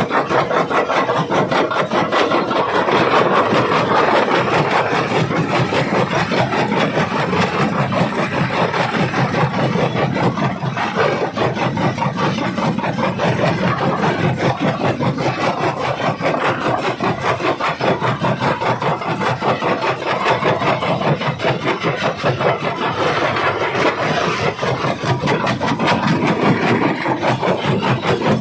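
Jaw crusher running and crushing rock: a continuous loud grinding crunch made up of rapid, closely spaced cracks and clicks.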